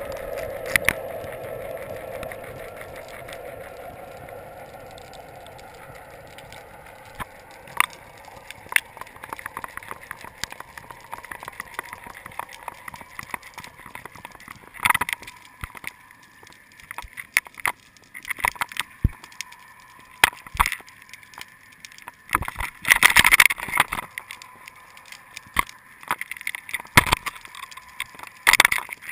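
Muffled underwater sound picked up through a GoPro's waterproof housing lowered on a fishing line: a water rush that fades over the first several seconds as it sinks, then scattered sharp clicks and knocks, with louder clusters of them near the middle and end.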